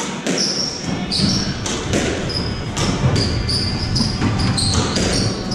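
Squash rally: the ball cracking off rackets and the court walls in a string of sharp hits about every half second, echoing in the court, with short high squeaks of court shoes on the wooden floor.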